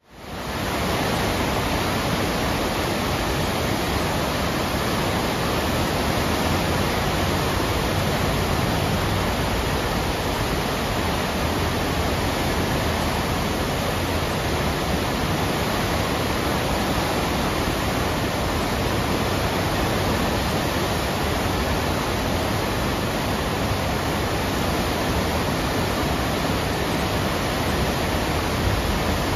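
The Dora Baltea river in flood, its high brown water churning through rapids in a steady, loud rush of whitewater that fades in at the very start.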